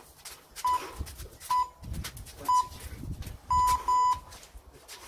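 Round-timer signal beeping: three short beeps about a second apart, then two longer beeps in quick succession, marking the start of a new round.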